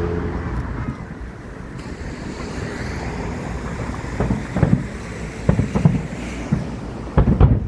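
Fireworks going off: a series of booms, a few about halfway through and a louder cluster near the end, over a steady rush of wind on the microphone.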